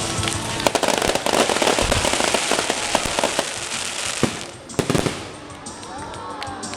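Aerial fireworks going off in a dense volley of rapid crackling pops that thins out after about four seconds, followed by two sharp, loud bangs about five seconds in.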